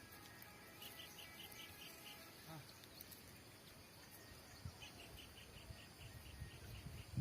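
Quiet outdoor ambience with two runs of rapid, evenly repeated high chirps, one about a second in and the other in the second half. Faint low thumps come in near the end.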